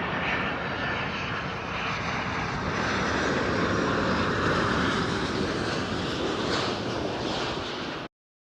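Airliner engines heard close by, a loud steady rush with a faint whine, cutting off abruptly about eight seconds in.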